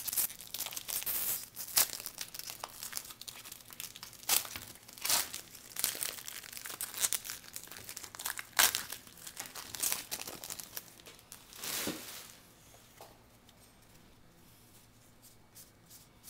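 Plastic foil wrapper of a trading-card pack being opened and crumpled: a run of sharp crinkles and rips that dies away about three-quarters of the way through, leaving only a few faint light ticks.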